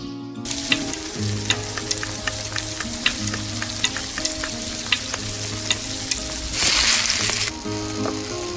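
Food frying in a pan, sizzling steadily, with a utensil tapping and scraping against the pan about once a second. Near the end the sizzle swells louder for about a second.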